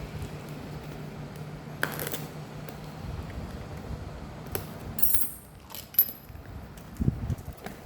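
Scattered clicks and light clinks of a phone and its small parts being handled on a work surface, with the sharpest click about six seconds in. A low steady hum sounds for the first three seconds, then stops.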